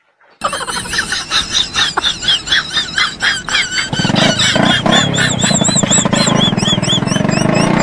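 Dubbed-in car engine sound effect: a rapid, repeated squealing like an engine being cranked, which settles into a steady engine hum from about four seconds in.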